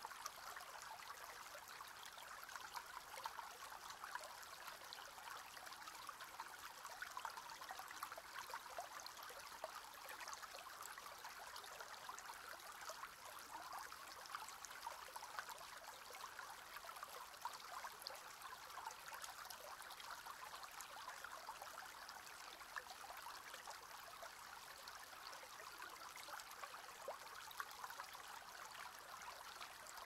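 Water flowing through reeds in a shallow stream: a faint, steady trickle with many small ticks.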